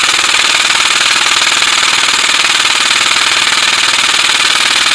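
Airsoft gun fired in one long, unbroken full-auto burst: a loud, very rapid, even rattle.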